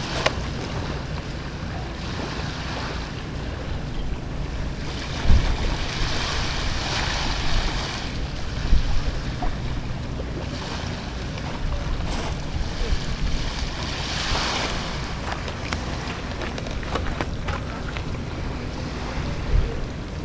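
Wind buffeting the microphone over small waves washing onto a gravel shore, the wash swelling twice, with a few light knocks.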